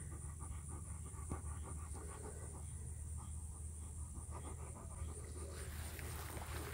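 Alaskan Malamute panting quickly and steadily, close to the microphone.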